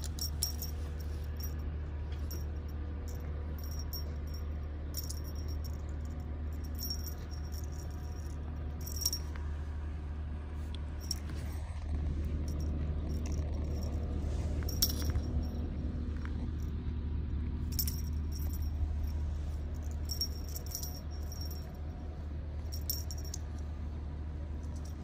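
Light metallic jingling in short, irregular clusters as a kitten bats a small toy on a string, over a steady low hum.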